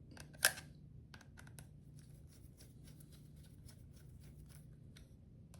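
Screwdriver tightening the blade screws on an Andis T-Outliner trimmer: a run of faint small clicks and ticks, with one sharper click about half a second in.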